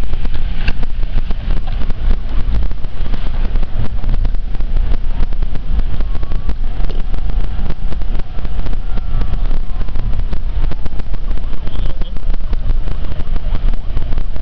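Wind buffeting the microphone through an open car window at road speed, a loud rough rumble over the car's road noise.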